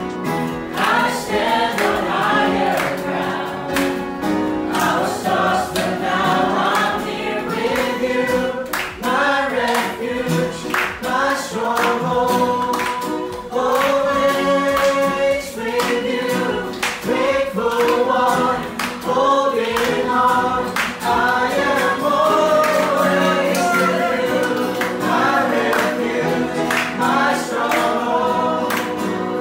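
A small group of voices singing a Christian worship song together, along with a backing track played through a TV and speakers.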